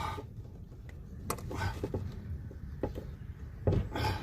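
A few sharp clicks and a duller knock near the end as a heater pipe and its clip are handled and pushed into place.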